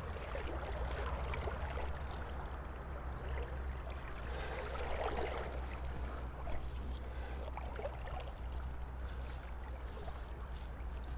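River water flowing and lapping around a wader's legs in a shallow trout river: a steady rush of water, swelling louder for a moment about five seconds in.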